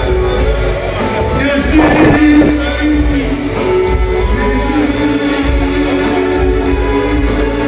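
Live amplified band music with a singer's voice over long held instrument notes, heard through the PA in a large concert hall. The music swells briefly about two seconds in.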